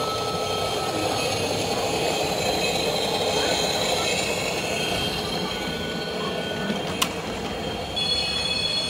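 Model trains running on the layout's track, with high-pitched squealing tones from the wheels. There is a single sharp click about seven seconds in.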